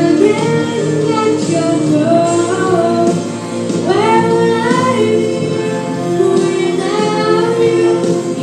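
A girl singing a song into a microphone over musical accompaniment, her voice carried by the hall's sound system, with held notes and a rising phrase about four seconds in.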